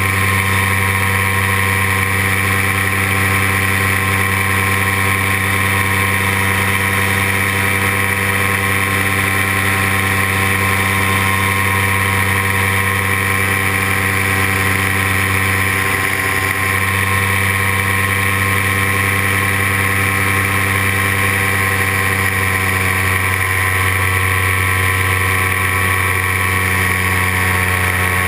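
Paramotor engine and propeller running steadily in flight at constant throttle, an even drone with no change in pitch, heard close up from the pilot's seat.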